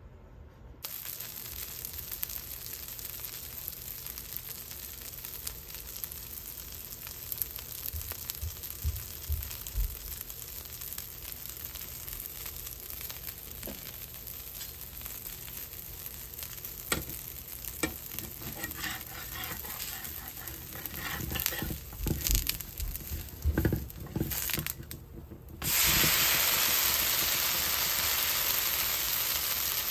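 Dosa batter sizzling steadily on a hot tawa, with a metal spatula scraping and knocking against the pan in the second half. Near the end the sizzle suddenly grows much louder.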